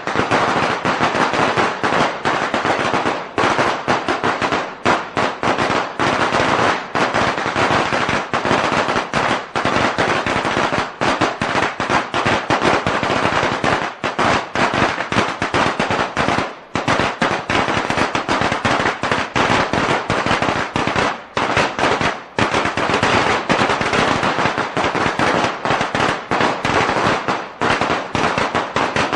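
A string of firecrackers going off: a long, loud, rapid run of sharp cracks, packed close together, with only momentary breaks.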